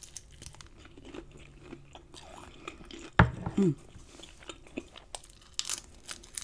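Close-miked crunching and chewing of cornmeal-breaded fried shrimp: crisp crackles of the coating as it is bitten and chewed, with one loud sharp crunch about three seconds in.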